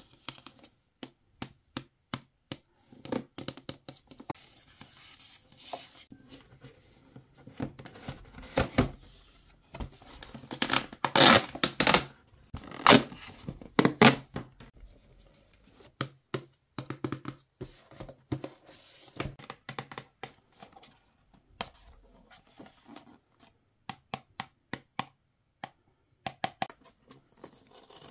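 Long fingernails tapping and scratching on a cardboard box in a run of sharp clicks, then the cardboard being torn open with loud ripping in the middle. Lighter scratching and clicking follow as a small cardboard box is handled and opened.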